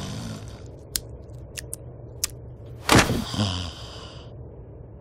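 Cartoon sound effects of a man's floating body being knocked against a bedroom wall by a tractor beam: a few light clicks, then one loud thump about three seconds in. A steady low hum runs underneath.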